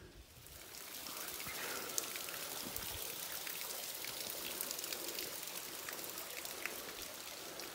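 Waterfall water splashing and trickling onto granite rock: a steady hiss with many small dripping ticks, swelling over the first second and then holding.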